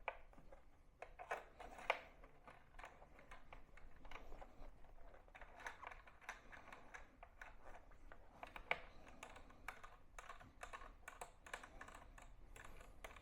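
Quiet, irregular clicks and light knocks of a Triumph Street Triple 675R's fuel tank being fitted back on and fastened: hard parts tapping together, with sharper knocks about two seconds in and again near nine seconds.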